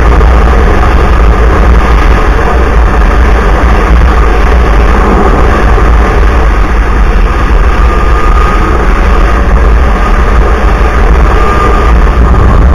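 Snowmobile running steadily at trail-riding speed, loud and close, with a heavy wind rumble on the microphone.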